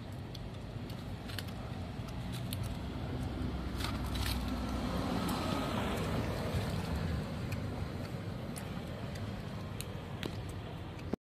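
Outdoor street background of distant road traffic: a steady low rumble that swells for a few seconds in the middle, with a few faint clicks. It cuts off abruptly near the end.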